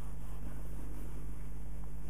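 Steady low hum with a faint, even hiss over it: workshop room tone.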